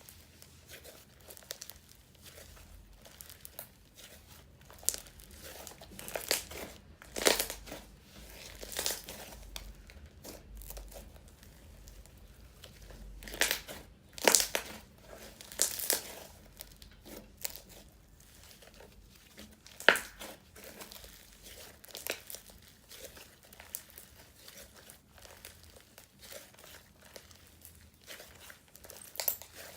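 Crunchy snow fizz slime being squeezed and poked by hand, giving irregular crackling and crinkling crunches with a few louder pops.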